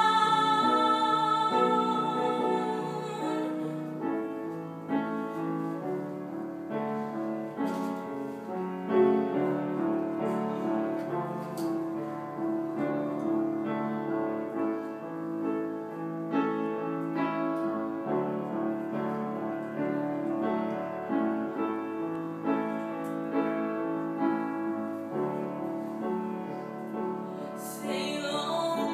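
A woman sings a held note with strong vibrato that ends a few seconds in. A piano accompaniment then plays on alone, and the voice comes back in near the end.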